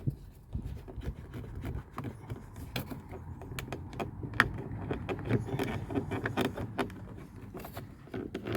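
Plastic car door trim panel being pried and unclipped by hand: scattered clicks, creaks and handling knocks, with one sharper click about four and a half seconds in.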